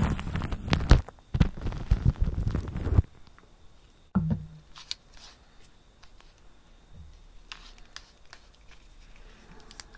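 Close-up rubbing on the microphone, a dense crackling scratch for about three seconds. Then it drops off, leaving one sharp click about four seconds in and faint scattered ticks.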